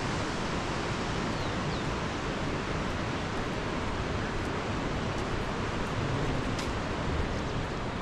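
A rocky mountain river rushing over stones: a steady, even rush of noise.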